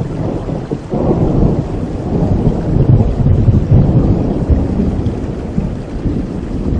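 Thunder rumbling low over steady rain; the rumble swells about a second in, is loudest in the middle, then eases off.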